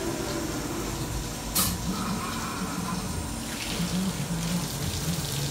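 Metalworking coolant running and draining inside a CNC machining centre's enclosure, with a low machine hum and one sharp knock about a second and a half in.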